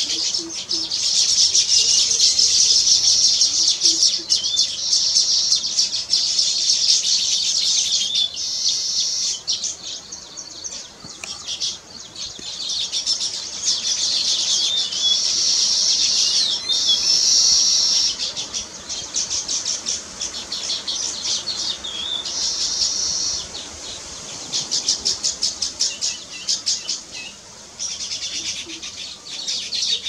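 Baya weaver birds singing: a dense, rapid, high-pitched chatter in long stretches that fade and come back several times, with a few short whistled notes.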